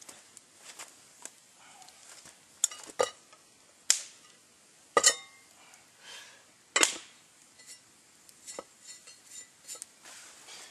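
Camp cookware and gear being handled at a campfire: about five sharp knocks and clanks spread over a few seconds, with fainter taps and rustles around them.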